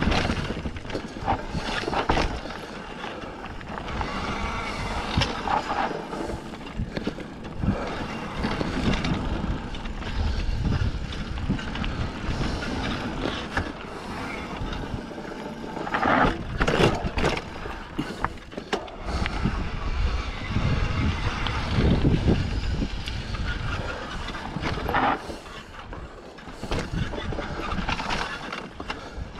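Mountain bike riding down a dirt trail: tyres rolling over dirt and roots, with the bike rattling over bumps and wind rumbling on the microphone.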